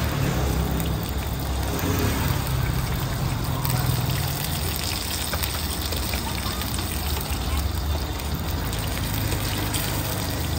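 Cakes frying in shallow oil in a large wide pan, the oil sizzling steadily, with a steady low hum underneath.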